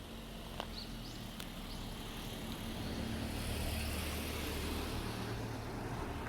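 Diesel railcar passing close by: a steady low engine drone under growing wheel and rail noise, loudest in the middle and easing off at the end. Two sharp clicks come about a second apart near the start.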